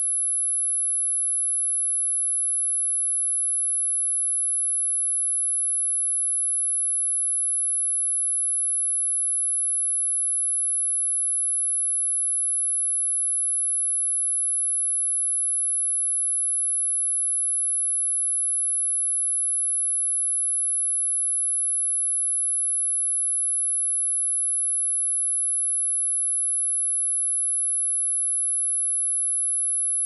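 A single high-pitched sine-wave test tone at 10,981 Hz, held steady in pitch and level: a speaker test and speaker-cleaning tone.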